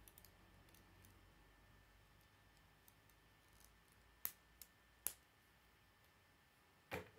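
Plastic K'nex pieces clicking as connectors and rods are snapped together by hand: three sharp snaps in the second half, with fainter plastic clicks between.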